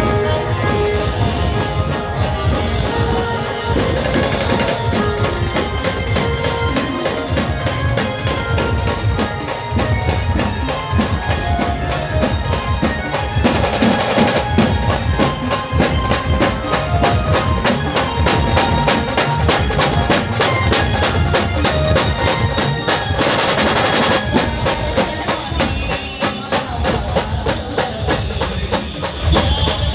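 Loud band music for a street procession: fast, dense drumming and percussion driving a steady beat under a melody.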